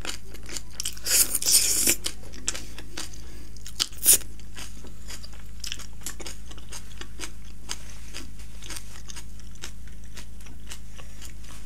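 Close-miked crunchy chewing of vegetable kimchi: a loud crisp bite about a second in, then steady chewing with many small crackles and one sharp crunch about four seconds in.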